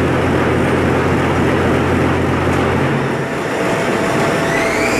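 Poyatos Novabloc concrete block production line running: a loud, steady mechanical din with a low hum. The hum drops away about three seconds in, and near the end a machine whine starts and rises in pitch.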